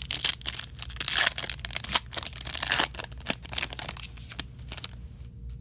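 Foil trading card pack wrapper being torn open and crinkled in the hands, a dense crackling rustle that is loudest in the first three seconds and dies away near the end.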